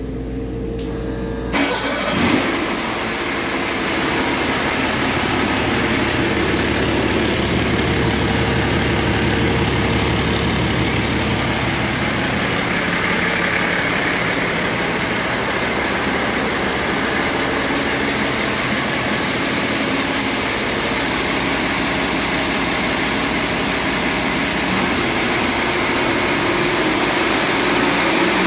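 Detroit Diesel DD8 inline-six diesel engine on a test stand starting about two seconds in, then idling steadily for the rest of the time. It is a low-mileage engine that runs excellent.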